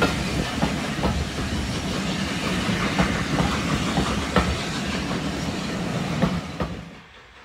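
Heritage railway passenger coaches rolling past close by, a steady rumble with irregular clicks of the wheels over the rail joints. The sound drops away sharply near the end.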